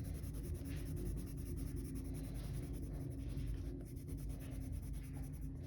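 Colored pencil rubbing and scratching steadily on sketch-pad paper as a swatch is shaded in, over a steady low hum.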